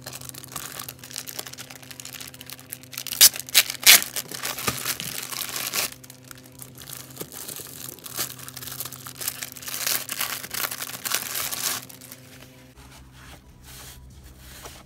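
Thin clear plastic bags crinkling and rustling as a fabric organiser bag is pulled out of its wrapping, with three loud sharp rips of the plastic about three to four seconds in. The handling grows quieter about twelve seconds in.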